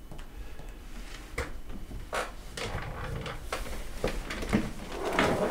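A string of light, separate knocks and clicks as objects are handled on a wooden office desk, growing busier near the end.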